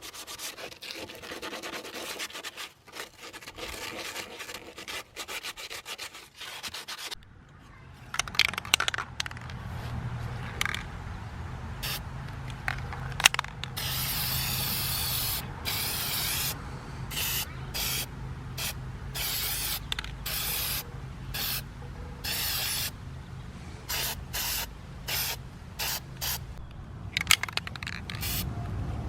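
Rust being scrubbed by hand off the sheet-metal bottom of an RV water heater, a dense rough rubbing for the first several seconds. It is followed by an aerosol spray can hissing in repeated short bursts of a second or two each, applying a rust treatment.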